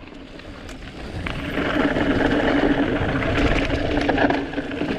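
Mountain bike rolling down a trail: tyre noise and wind on the camera's microphone build up over the first second or two as it picks up speed, with a steady hum through the loud middle part.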